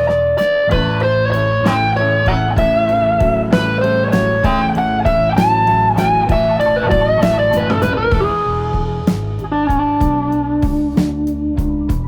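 Relaxing instrumental music: a guitar melody of held notes over a low bass line and a steady beat.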